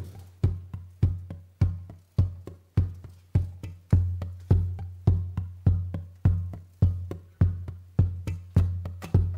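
Background music with a steady drum-machine beat: a deep bass drum a bit under two times a second, with clicky woodblock-like percussion on top.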